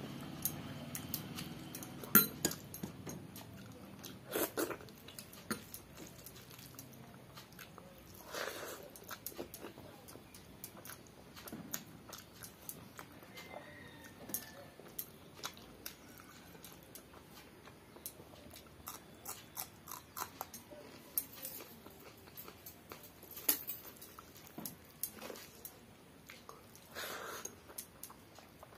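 Close-up chewing and mouth sounds of a person eating rice and vegetable curries by hand. There are irregular wet smacks and sharp clicks, with a few louder ones now and then.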